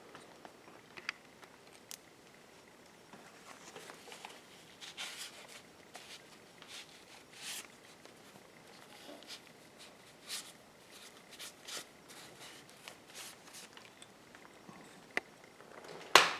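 Light scattered clicks, taps and brief rustling scrapes of a small painted wood carving being handled and turned over while it is checked for stray brush bristles, with one sharper click near the end.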